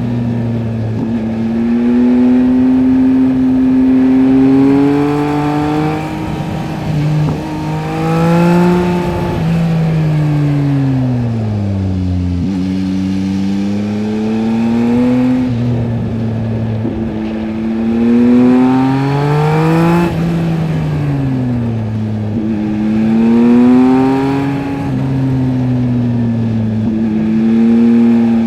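Yamaha MT-09 SP's 890 cc inline-three through a LeoVince LV Race exhaust, riding: engine pitch rises and falls repeatedly as the throttle is opened and rolled off through several gear changes.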